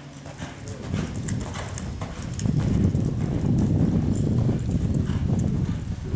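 A ridden horse loping on soft arena dirt, its hoofbeats coming in a steady rhythm. A low rumble swells about two and a half seconds in and becomes the loudest sound.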